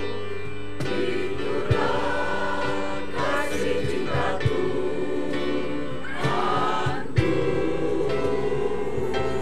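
Church choir of mixed voices singing a hymn in held chords over sustained low accompanying notes.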